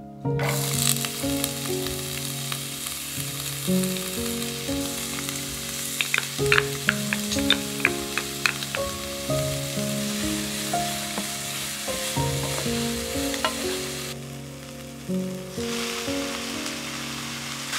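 Diced onion sizzling as it fries in oil in a nonstick pan, stirred with a utensil that taps sharply against the pan several times about halfway through. The sizzle drops briefly near the end, then comes back louder as beef mince goes into the pan, over background music.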